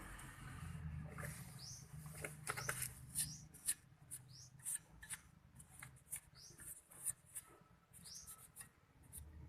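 A bird's short, high, rising chirp repeats about every second and a half. Scattered sharp clicks and taps run through the middle, the loudest a little under four seconds in.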